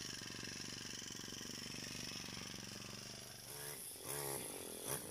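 Brush cutter's small engine running steadily, heard faintly as an even drone. It drops away about three and a half seconds in.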